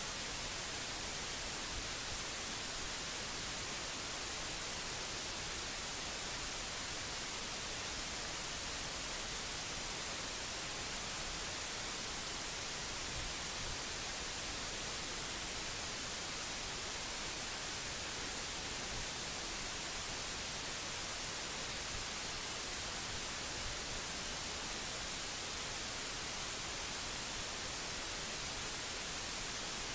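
Steady hiss of electronic recording noise, even and unchanging, with no other sound.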